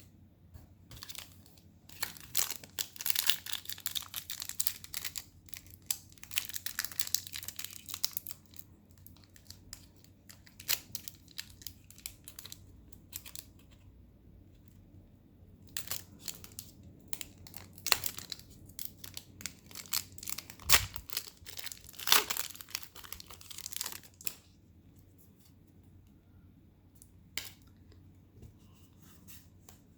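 Foil booster-pack wrapper crinkling and being torn open, in irregular bursts of crackling with a few sharp snaps, as the trading cards are handled.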